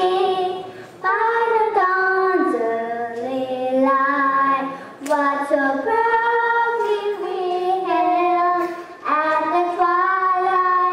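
A young girl singing a national anthem solo and unaccompanied into a microphone, in slow phrases of held notes with short breaths between them.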